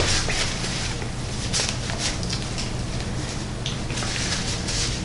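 Person chewing a bite of smoked baby back rib, with short wet mouth sounds and smacks scattered through, over a steady low hum.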